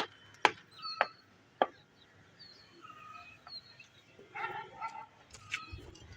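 A few sharp taps in the first two seconds, typical of tiles being tapped into place during tile fitting, with short bird chirps in the background.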